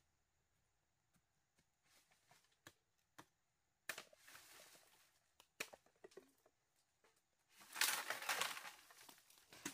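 Scattered light clicks and cracks, then a couple of seconds of louder crunching near the end.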